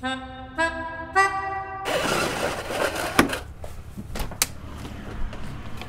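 A short musical motif: three steady horn-like notes, each higher than the last, about half a second apart. Then a burst of hissing noise that slowly fades, with a few sharp clicks.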